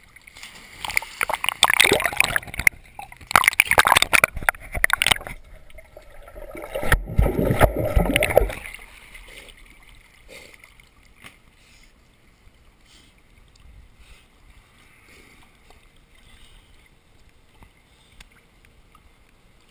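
Water splashing and sloshing in a swimming pool as dogs swim and move through it, in two loud spells in the first half, then only faint water sounds.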